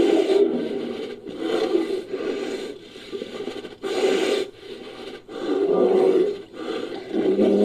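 Invented creature vocalizations made from elephant seal calls and Megatherium sound effects: a series of low calls, about five, each lasting a second or so with short gaps between.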